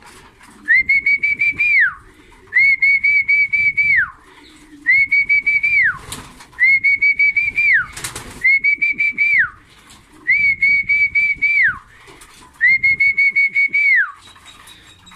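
Seven trilled whistles, each held at one pitch for about a second and then dropping away, repeated about every two seconds. This is a pigeon fancier's whistle calling homing pigeons down into the loft to feed. There is a sharp knock about eight seconds in.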